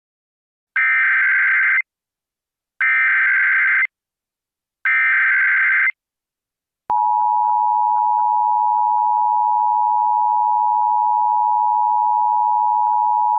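Emergency Alert System tones: three SAME header data bursts, each about a second long and two seconds apart, then about seven seconds in the steady two-tone EAS attention signal begins.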